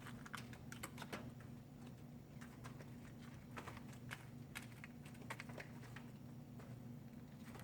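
Chickens pecking: faint, irregular sharp taps, some in quick little clusters, over a steady low hum.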